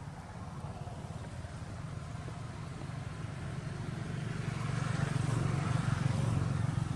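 A motor vehicle passing: a low engine hum that grows louder to a peak about five to six seconds in, then eases slightly.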